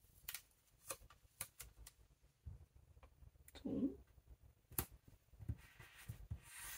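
Faint handling sounds of washi tape being laid onto a paper planner page: scattered small ticks and taps, one sharper click a little after the middle, and a soft rubbing hiss near the end as fingers press the tape flat.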